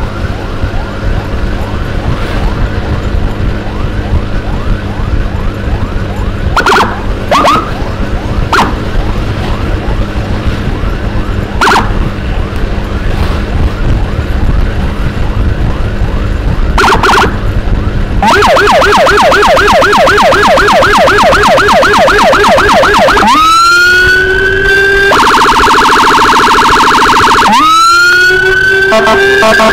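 Electronic emergency siren. For the first part it yelps more quietly in quick repeated rising sweeps under road and engine noise, with a few short sharp blips. About two-thirds of the way in it turns loud and fast-yelping, then switches to a long rising-and-falling wail, a rapid warble, and another rising wail near the end.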